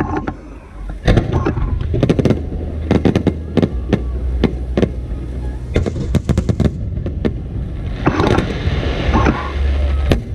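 Aerial fireworks going off in a rapid, irregular series of bangs, with a brief lull about half a second in and a denser stretch of crackling about eight seconds in.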